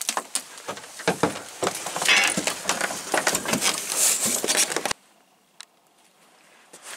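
In-shell peanuts rattling and clicking against each other as a handful is scooped from a metal tub and turned in the hand. The clatter cuts off suddenly about five seconds in, leaving only faint quiet with a couple of small ticks.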